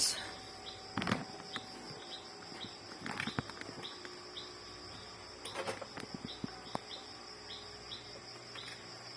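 Crickets trilling steadily, with short chirps repeating two or three times a second, and a few light clicks and knocks about one, three and five and a half seconds in.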